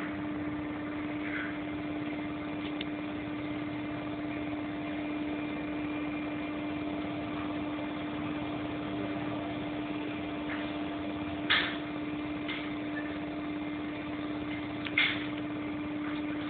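Steady low machine hum with one strong droning tone, broken by two short sharp clicks in the second half.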